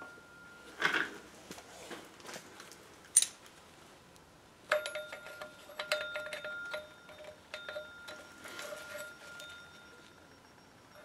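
Metal hand tools clinking and ringing as an Allen key gripped in locking pliers works at the Allen bolts of an engine pulley: scattered clicks, a sharp click about three seconds in, then a run of clinks with a lingering metallic ring from about five seconds in.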